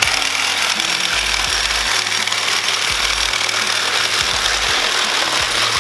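Cordless DeWalt reciprocating saw running steadily at full speed as it cuts through a scrap air-conditioner coil slab, on a fully charged battery that lets it cut easily.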